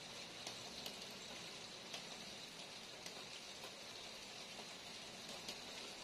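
Steady light rain falling, an even soft hiss with scattered raindrops ticking sharply now and then.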